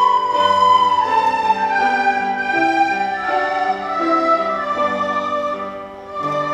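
A class of children playing soprano recorders in unison: a slow, sustained melody that falls gradually in pitch, over a lower accompaniment with a bass line. The music briefly drops in level near the end.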